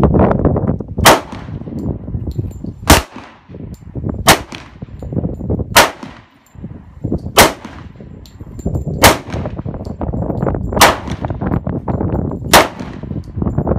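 Semi-automatic pistol fired eight times as slow, evenly spaced single shots, about one every second and a half to two seconds, each shot trailing off in a brief echo.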